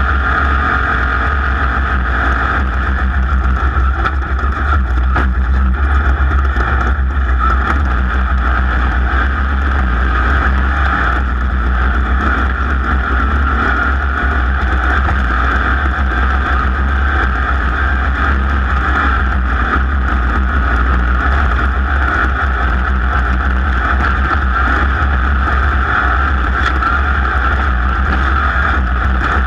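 Off-road race car's engine running steadily at speed, heard from on board with a deep, constant rumble.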